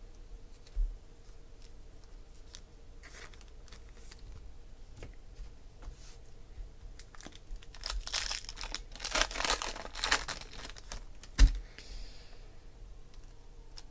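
Foil wrapper of a baseball card pack being torn open and crinkled, most heavily from about eight to eleven seconds in. Light clicks of cards being handled run through it, with a thump just under a second in and a sharp knock about two seconds before the end.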